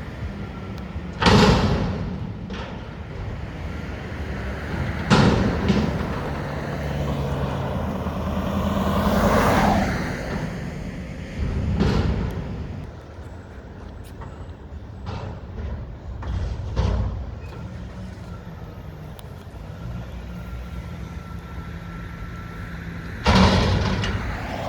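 Mack garbage truck with a McNeilus front-loader body working: its diesel engine runs steadily, with four loud sudden bangs and clanks and a swelling hiss about nine seconds in.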